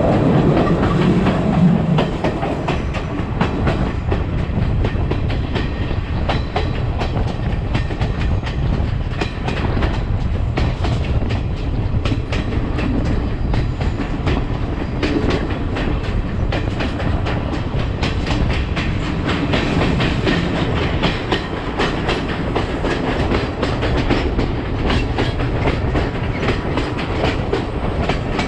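Sri Lanka Railways passenger train running along the track: a steady rumble with frequent clicking of the wheels on the rails.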